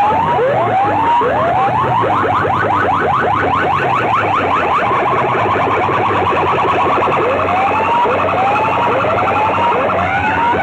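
Siren-style electronic sound effect blasted through a sound system's horn loudspeakers: a rising whoop repeating about once a second, breaking into a fast run of quick rising sweeps for several seconds in the middle, then slower whoops again near the end, over a steady low hum.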